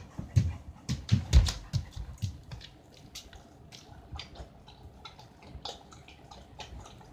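A run of thumps and clicks, loudest about one to two seconds in, then scattered light ticks: a German shepherd's paws and claws on a wooden floor as it walks past.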